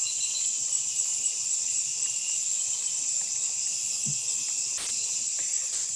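Steady high-pitched chorus of night insects, with a couple of faint clicks near the end.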